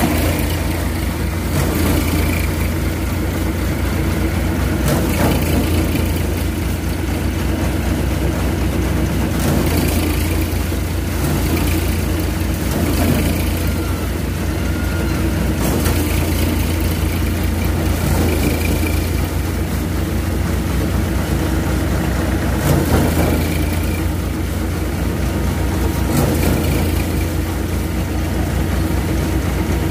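Tractor-driven Dashmesh paddy thresher running steadily: a low engine drone with the threshing drum whirring. Brief swells of rushing noise come every few seconds as bundles of paddy straw are pushed into the drum.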